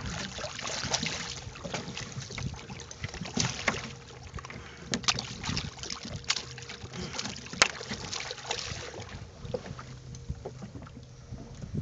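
Water splashing and sloshing against a boat's hull as a hooked loggerhead sea turtle moves at the surface alongside, with several sharp splashes or knocks in the middle. Wind on the microphone and a low steady hum run underneath.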